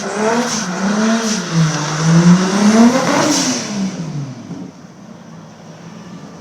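Nissan drift car's turbocharged RB25DET straight-six revving hard, its pitch rising and falling repeatedly through the drift. The note drops and fades away about four seconds in.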